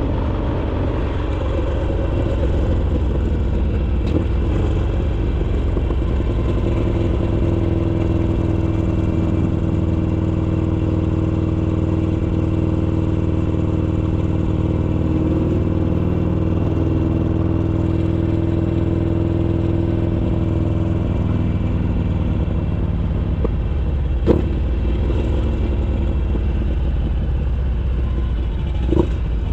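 Harley-Davidson Iron 883's air-cooled V-twin engine running steadily through an RSD 2-into-1 exhaust, a loud, even drone. Two brief sharp knocks, one about three-quarters of the way through and one near the end.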